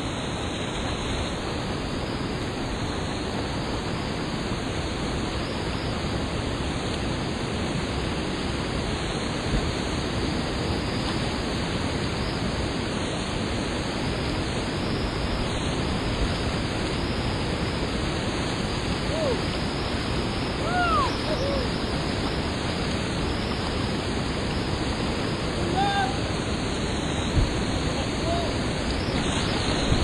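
Rushing water of river falls and whitewater, a steady roar that grows a little louder toward the end. A few brief high calls rise over it about two-thirds of the way in.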